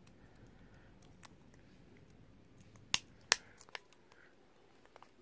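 Small, sharp plastic clicks as the Samsung Galaxy S7 edge's snap-in loudspeaker cover is released by fingertip, with two louder clicks close together about three seconds in.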